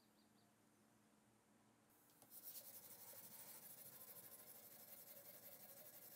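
Near silence, then about two seconds in, the diamond stone on the Tsprof K03 guided sharpener's arm starts rubbing back and forth along a steel knife edge: faint, quick, rhythmic scraping strokes.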